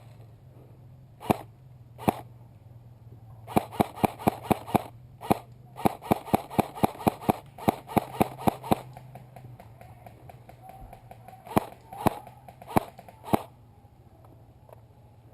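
Airsoft rifle firing rapid single shots, close by: two shots, then quick strings of several shots at about four a second, then four more spaced shots near the end.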